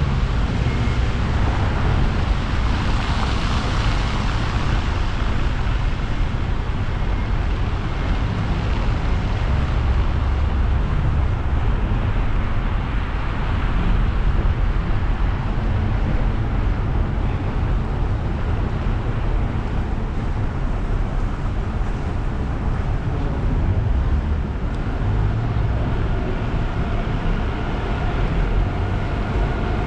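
Car driving on wet roads in the rain: a steady low rumble of road noise with the hiss of tyres on wet tarmac, swelling brighter for a few seconds near the start. A faint steady whine joins in near the end.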